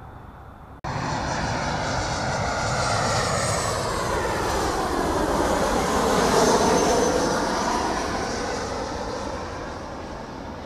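Boeing 737 airliner on landing approach with gear down, its CFM56 turbofans passing low overhead. The jet noise comes in abruptly just under a second in, builds to a peak about six seconds in with a sweeping, phasing quality as the plane passes, then fades as it moves off toward the runway.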